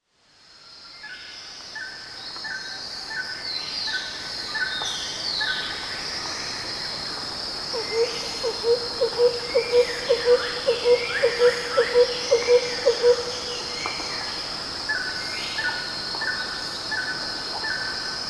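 Outdoor nature ambience fading in: a steady high insect drone, with birds calling in short falling whistles and a regular run of chirps. In the middle a low call repeats about three times a second for several seconds, the loudest sound in the mix.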